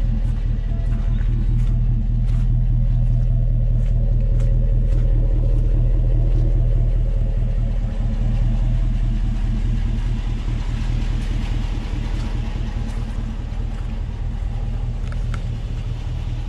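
An engine running steadily with a low hum, with light clicks scattered through the first half.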